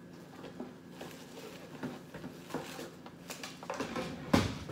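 Light rustling and small handling clicks of disposable gloves being pulled on at a counter, with one sharp knock near the end that is the loudest sound.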